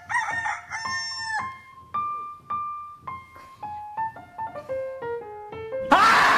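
A rooster crowing twice, then a descending run of single piano notes that quickens as it falls. Near the end a loud burst of noise cuts in.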